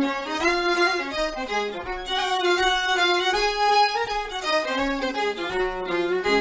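Four fiddles playing a traditional tune together, a quick melody of short bowed notes running on without a break.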